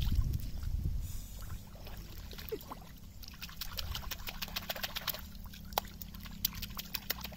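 Hands splashing and paddling in shallow, slow-running channel water: a quick run of small splashes and drips, busiest in the second half.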